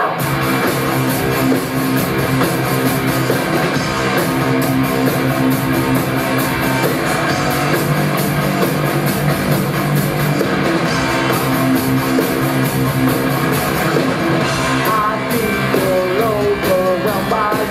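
Live rock band playing loudly: guitar and drum kit driving a steady groove, with a voice singing over it in the last few seconds.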